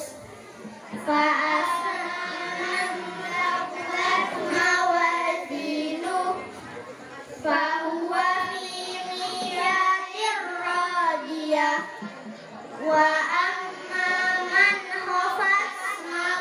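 Children's voices reciting a short surah of the Quran in a melodic chant (tilawah), amplified through microphones. The recitation goes in drawn-out phrases of a few seconds each, with short pauses for breath between them.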